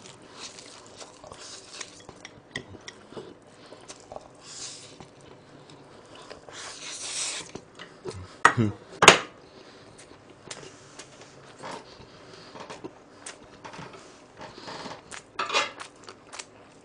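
Eating sounds: chopsticks and tongs clicking and scraping on a plate and a metal tray, with chewing of a mouthful of cold spicy noodles. Two sharp clacks about eight and a half and nine seconds in are the loudest.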